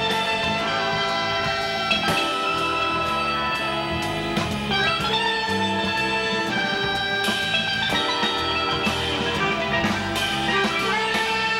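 Live jazz band music: a harmonica plays a melody in long held notes over electric bass and drums, with cymbal hits every second or two.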